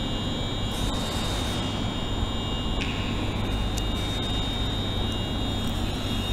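Scotrail Class 380 Desiro electric multiple unit running at a steady speed: a constant rumble under a steady high-pitched whine.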